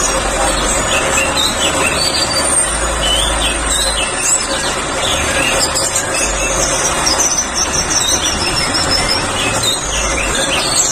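An orange-headed thrush and many other caged songbirds singing at once in a dense chorus: quick high chirps, trills and whistled glides over a steady, noisy din.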